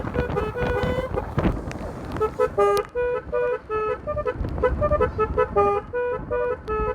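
Motorcycle's basuri telolet musical horn playing a tune of short pitched toots, hopping between a few notes. From about two seconds in the toots become quick and staccato, over a low rumble.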